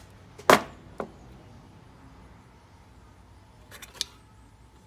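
Bolts and seat-bracket hardware being handled: one sharp clank about half a second in, a lighter click a second in, and a quick run of small clicks near the end.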